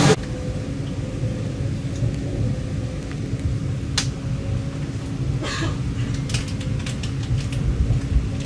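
Low steady rumble with a faint steady hum, a single sharp click about four seconds in and a few light ticks near the end.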